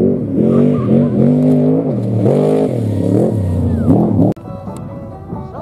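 Desert race truck (Geiser Bros Trick Truck) engine revving hard, its pitch rising and falling repeatedly with the throttle as it races past. About four seconds in the engine sound cuts off abruptly, giving way to quieter music with steady held notes.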